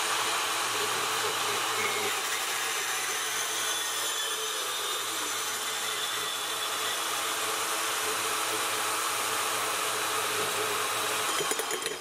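Portable band saw running steadily as its blade cuts through a 2-1/8-inch mild steel exhaust pipe. It stops shortly before the end.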